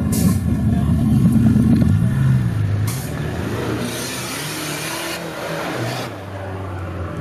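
Off-road 4x4 engine revving, its pitch rising and falling over the first few seconds, then a loud hissing rush for about three seconds while the engine note drops lower and steadier near the end.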